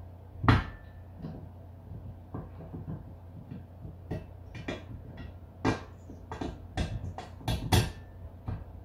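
Metal clinks and taps of a bolt, washers and wheel sleeve being fitted by hand into the steel leg of an engine stand: a sharp knock about half a second in, then scattered clicks that bunch together near the end.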